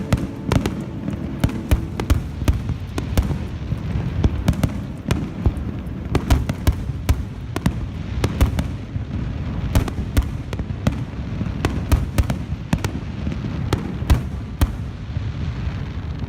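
Aerial fireworks bursting: a rapid, irregular series of sharp bangs and cracks over a continuous low rumble of booms.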